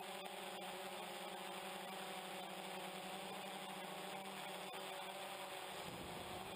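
DJI Phantom quadcopter's motors and propellers buzzing steadily in flight, heard from the camera mounted on the drone.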